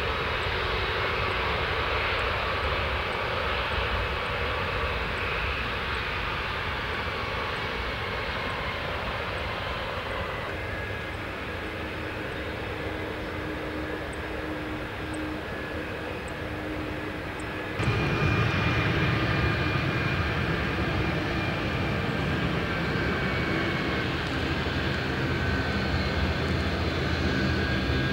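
Jet airliner engines at taxi power: a steady rumble under a high turbine whine, first from a taxiing Boeing 747. About 18 s in the sound changes abruptly to a louder, deeper jet engine sound with a whine, from a taxiing Boeing 737-200 with its Pratt & Whitney JT8D engines.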